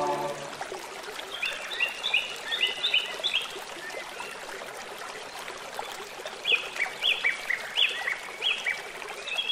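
Birds chirping over a running stream: two runs of quick chirps, each falling in pitch, over a steady rush of water. A held music chord ends at the very start.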